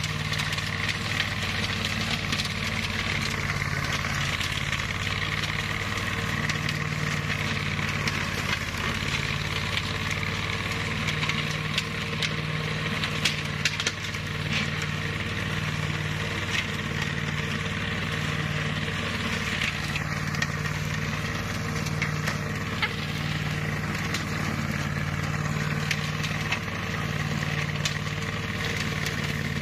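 Flail mower's engine running steadily under load while cutting grass, with scattered sharp ticks from the cutting.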